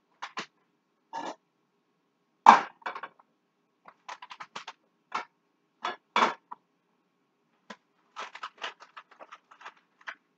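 Cookware being handled: a run of short, irregular clinks and knocks from a metal pot, its lid and utensils, the loudest about two and a half seconds in.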